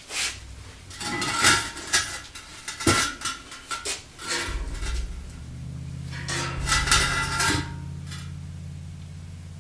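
Steel cement mixer drum and its welded wheeled frame clanking and rattling as they are rocked and shifted by hand, in a run of uneven metal knocks. A low steady hum comes in about halfway.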